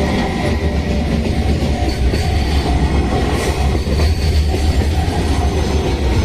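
EF210-hauled container freight train rolling steadily past a level crossing, its wheels rumbling and clattering over the rails with some wheel squeal. A repeating two-tone level-crossing alarm rings over the train noise.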